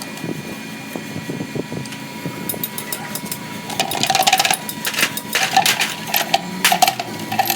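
Irregular metallic clicks and knocks of hand tools on gearbox parts, growing quicker and louder about four seconds in.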